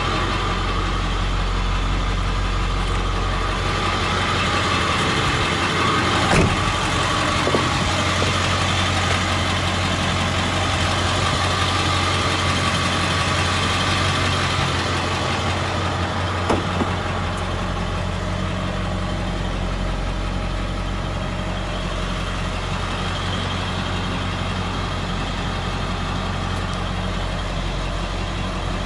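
1999 Ford F-250's 7.3-litre Power Stroke turbodiesel V8 idling steadily, a low hum with a constant higher whine over it. A few light knocks come partway through.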